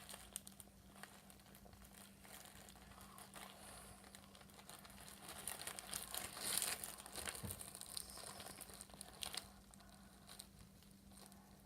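Slime being worked by hand and pulled from its plastic container: faint sticky crackling and crinkling, busiest about six to seven seconds in, over a steady low hum.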